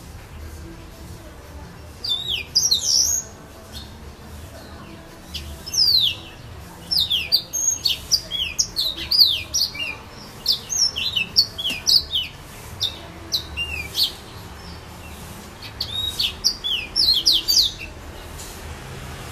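Yellow-fronted canary (serin) singing in bursts of quick, high, mostly falling whistled notes: a short phrase about two seconds in, a long run through the middle, and a last phrase near the end.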